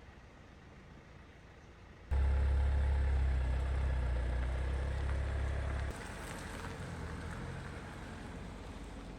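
A steady low engine hum that starts abruptly about two seconds in and drops to a quieter level near six seconds.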